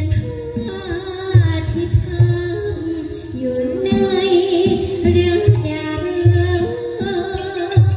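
Likay (Thai folk opera) singer singing a melody into a microphone through the stage PA, over a band with a low drumbeat about every three-quarters of a second.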